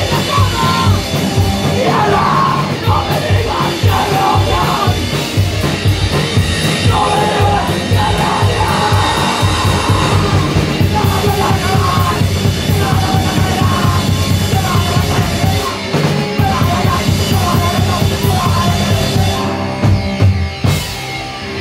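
Live rock band playing loud: distorted electric guitar and a drum kit, with shouted vocals. The song breaks off near the end into a few last hits.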